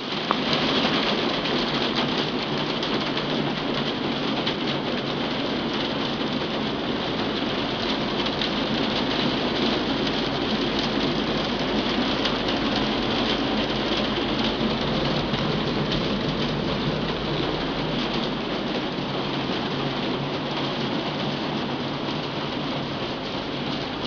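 Hail falling heavily on a glass roof: a dense, steady clatter of countless small impacts on the glass.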